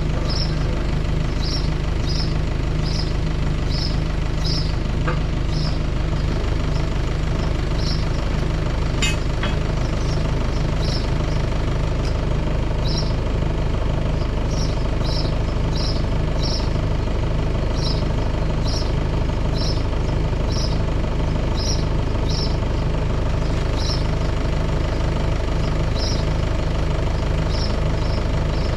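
An engine or motor running steadily, with a constant low hum. Short high chirps recur irregularly about once a second over it.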